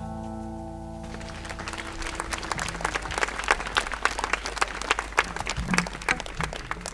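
The last strummed chord of an acoustic guitar rings out and fades, and about two seconds in an audience breaks into applause that carries on to the end.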